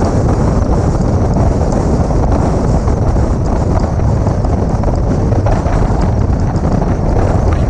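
Wind buffeting the microphone of a camera mounted outside a moving car: a steady, loud rush strongest in the low end, with the car's driving noise underneath.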